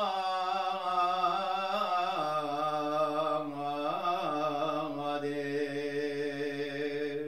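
A priest's solo male voice chanting a long unaccompanied phrase of the Syriac Orthodox Eucharistic liturgy, the words of institution over the bread. The pitch steps down about two seconds in and wavers in melismatic ornaments around four seconds in. The phrase ends near the end with a short church echo.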